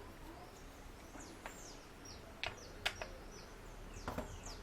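Small birds chirping in short, falling chirps, with a few sharp clicks, the loudest two about two and a half and three seconds in.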